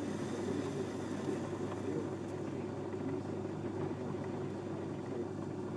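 Metal-turning lathe running steadily while its tool faces and chamfers the head of a steel pin turned from hex bar.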